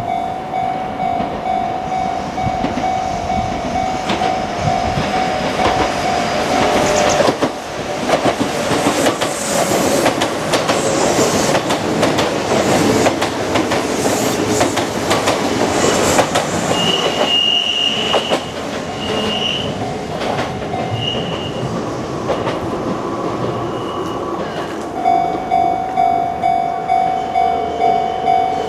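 Japanese level-crossing warning bell ringing, a steady repeated ding about twice a second. A Kintetsu electric train passes through the crossing in the middle, and the rumble and clatter of its wheels drowns the bell, with a few short high-pitched tones. The bell comes through again, pulsing clearly, near the end.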